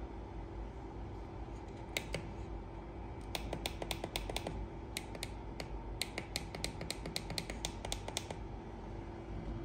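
Small sharp clicks from the side buttons of an Android car stereo head unit being pressed: two clicks about two seconds in, then a quick run of about four clicks a second that stops near the end, as the volume is stepped up. A steady low hum runs underneath.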